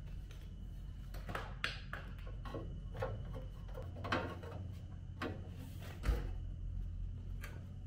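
Short metal clicks, knocks and scrapes as a new black-painted replacement panel is handled and offered up against a rusty Land Rover bulkhead, with one heavier thump about six seconds in, over a low steady hum.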